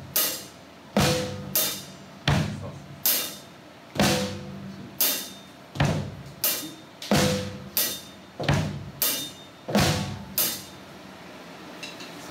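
Drum kit played slowly: bass drum, snare and cymbal strokes in a basic dance beat, with the bass drum kicks doubled. The strokes come about one or two a second, a little unevenly, and stop about ten and a half seconds in.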